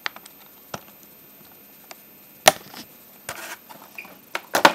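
A plastic clamshell container of spinach and a Vitamix blender jar being handled: a few sharp plastic clicks and knocks, the loudest about two and a half seconds in, with a quick cluster near the end.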